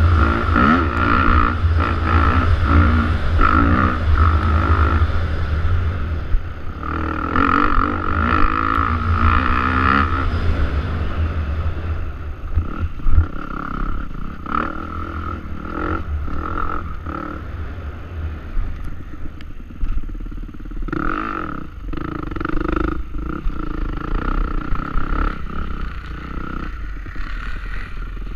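Enduro motorcycle engine revving up and down over rough ground, heard from a helmet camera, with clattering knocks from the bike over bumps. The engine is strongest in the first ten seconds and quieter after. A sharp knock about thirteen seconds in is the loudest single sound.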